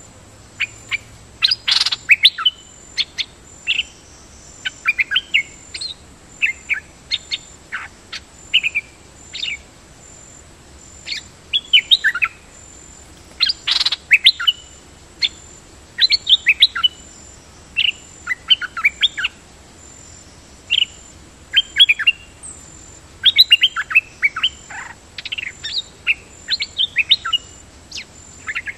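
Small songbirds, the caged nok dok taeng decoy among them, calling in bursts of short, bright chirps and quick twittering phrases a second or so apart. A faint, steady, pulsing high tone runs behind them.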